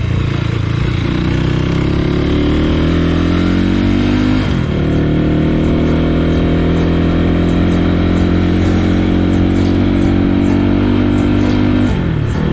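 Vehicle engine pulling under load. Its pitch climbs for a few seconds, breaks and drops about four and a half seconds in at a gear change, then holds steady, with another drop and climb near the end.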